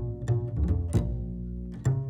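Instrumental music of low bowed and plucked strings, cello and double bass. A quick run of sharply attacked notes in the first second is followed by a held note and a fresh attack near the end.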